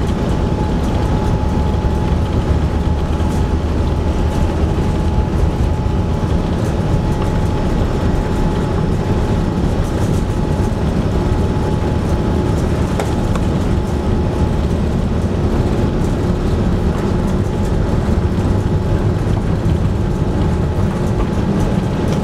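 Cabin noise inside an Airbus A380 taxiing on its Engine Alliance GP7200 turbofans: a steady, even rumble with a thin steady whine throughout, and a lower hum joining about halfway.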